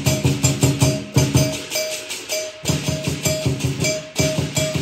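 Lion dance percussion: a big drum beaten in rapid strokes under clashing cymbals and a ringing gong. The low drum beats drop out briefly about two seconds in and again near the end, while the cymbals keep going.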